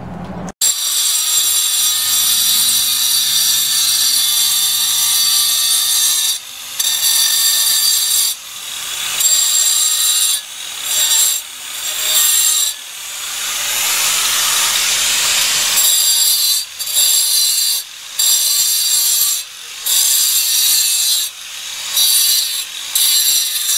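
Angle grinder grinding away the cement edge of a concrete countertop cutout so a drop-in ice chest will fit. It runs with a steady high whine for the first several seconds, then in a series of shorter bursts with brief let-ups between them.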